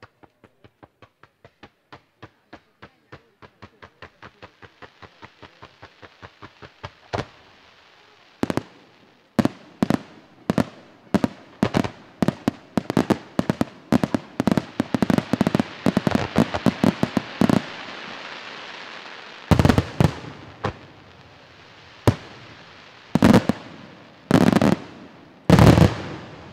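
Fireworks display: a rapid, even train of pops, about four a second, grows louder, then gives way to loud aerial bursts under a dense crackling hiss of glittering stars, ending in several heavy shell bursts a second or so apart.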